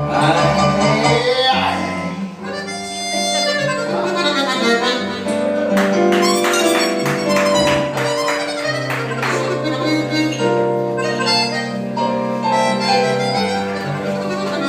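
Live blues band playing an instrumental passage, with a lead line of held notes over a steady bass.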